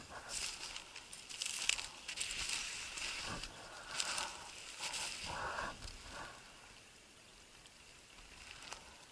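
Footsteps crunching through snow and dry grass, irregular steps with rustling, which stop about six and a half seconds in.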